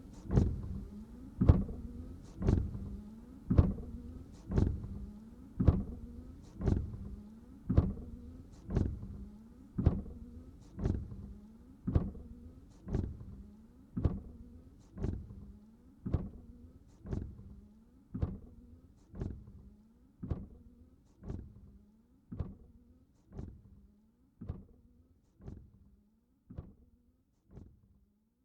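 Car windshield wipers sweeping across a dry windscreen with no water, about one stroke a second, each stroke starting sharply and trailing off, over a steady low hum. The strokes grow gradually quieter toward the end.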